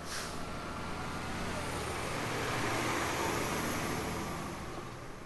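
Fire engine's diesel engine driving slowly past, a steady low drone that grows louder as it comes alongside about halfway through, then fades as it moves off.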